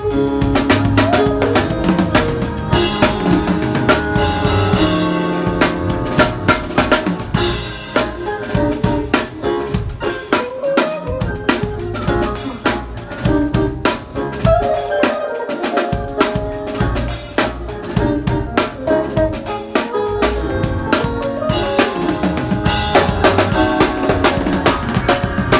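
A live band jamming: a full drum kit with snare, kick drum and cymbals driving the groove under keyboard, bass and guitar. The bass end drops out briefly twice in the middle.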